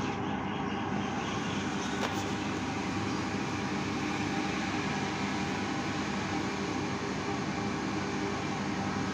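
Steady mechanical hum and rumble at an even level, with one faint click about two seconds in.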